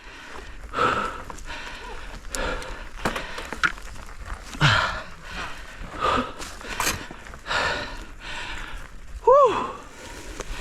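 A mountain-bike rider breathing hard, with heavy exhales about every second or so, and a short voiced grunt near the end.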